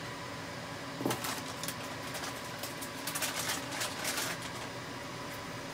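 A few light clicks and taps of small plastic parts being handled, over a steady room hum.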